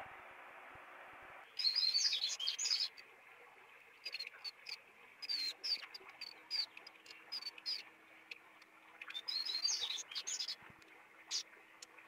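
A bird chirping in three bouts of quick, high repeated notes, the first starting about a second and a half in.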